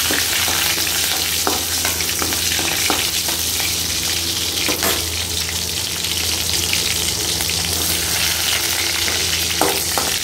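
Garlic cloves and slit green chillies sizzling in hot oil in a metal kadai, with a few clinks of a spoon stirring against the pan. A low steady hum runs underneath.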